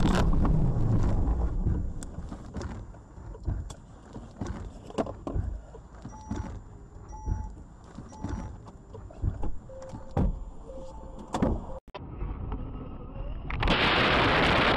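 Sounds inside a car in a crash: a loud rumbling that dies away about two seconds in. Scattered knocks and rattles follow, with a few short electronic beeps. Near the end a loud rush of road and wind noise comes in.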